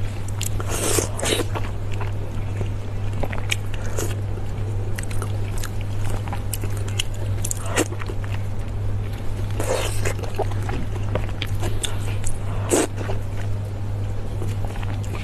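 A person eating close to the microphone: scattered short clicks and wet crackles of biting and chewing, over a steady low hum.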